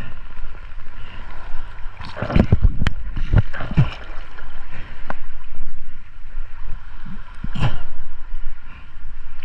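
Seawater sloshing and splashing around a swimmer at the surface, with a cluster of louder splashes about two to four seconds in and another near the end.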